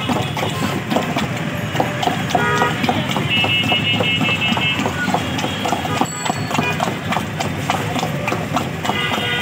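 A stick stirring and mashing juice in a steel pot, knocking and scraping against the metal in a quick, irregular clatter of clicks.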